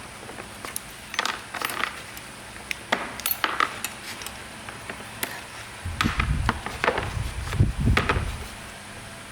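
Metal tools or parts being handled, with scattered light clinks and taps, then a stretch of heavier low thuds and knocking about six seconds in.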